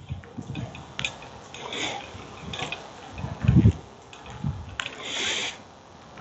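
POL fitting of a propane distribution tree being screwed by hand into a propane tank valve: scattered small metallic clicks and scrapes as the threads turn, with a few soft knocks and a brief rushing noise about five seconds in.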